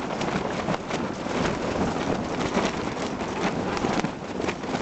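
Strong wind blowing steadily against the microphone, a constant rush broken by many short crackles.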